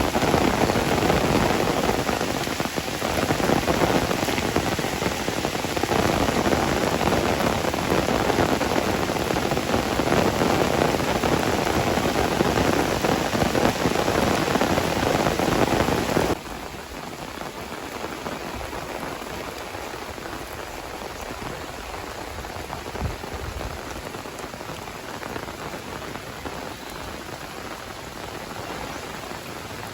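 Heavy rain falling steadily. Just past halfway it drops suddenly to a noticeably quieter, lighter rain.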